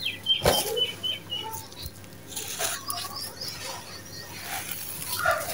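Dry sand-cement chunks with small stones crushed and crumbled by hand: irregular gritty crunches, the loudest about half a second in, with grit trickling through the fingers. A bird chirps a quick run of short high notes near the start and again around the middle.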